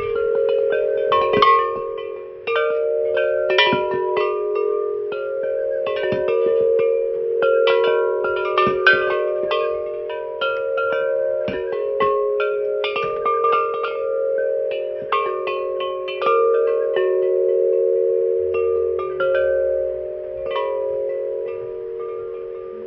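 Several bells of different pitches ringing, struck many times in quick, irregular succession so that their tones overlap and ring on; the strikes thin out near the end and the tones keep ringing.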